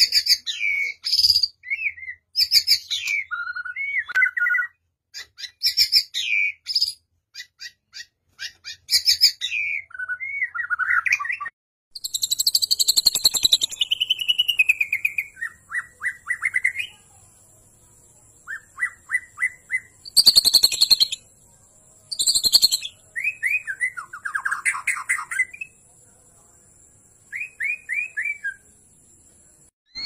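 Captive Bornean white-rumped shamas singing: a varied string of loud, clear whistles, quick trills and short runs of repeated notes, with a couple of harsh, scratchy bursts about two-thirds of the way through.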